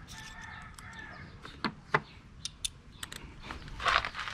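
Sharp metal clicks and taps of a wrench on a stuck-tight fitting of a John Deere 5045D tractor's diesel injection pump, about five spread through the middle. A harsh, drawn-out call is heard near the start and again near the end.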